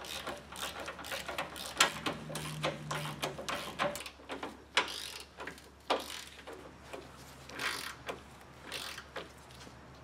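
Hand ratchet wrench clicking in short, irregular runs of strokes as the sway bar bushing bolts are run down tight.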